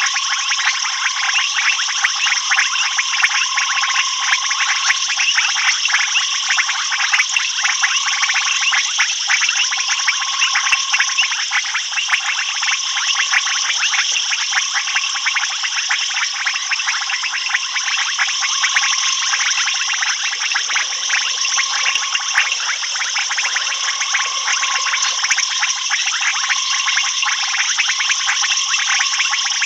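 Night chorus of frogs and insects: a dense, unbroken high trilling full of rapid clicks, with a lower short call repeated about every couple of seconds.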